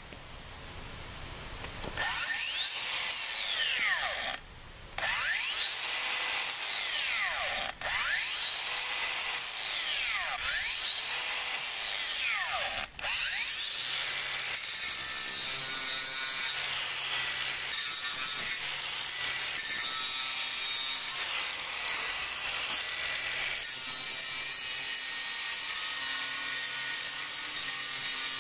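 Makita XGT GA005G 125 mm cordless brushless angle grinder with a cutting disc, cutting through steel square tubing. It starts about two seconds in and runs loud. In the first half its pitch sweeps down and back up several times and breaks off briefly three times. After that the cut settles into a steady grind.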